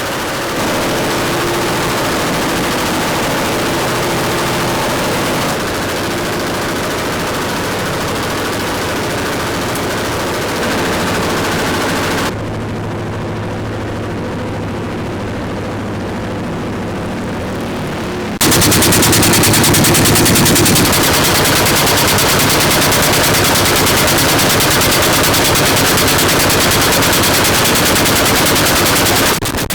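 Pneumatic impact wrench rattling in long, rapid bursts, typical of wheel nuts being spun off or on a truck's rear wheels. The sound changes abruptly several times and is loudest in the last third.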